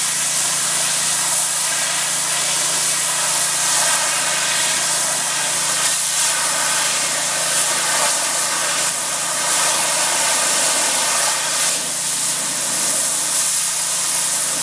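Steam pressure washer spraying: a steady, loud hiss over the machine's even hum.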